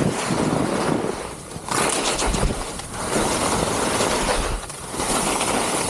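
Touring skis scraping and hissing through snow on a fast descent, swelling and easing with the turns, with wind buffeting the microphone.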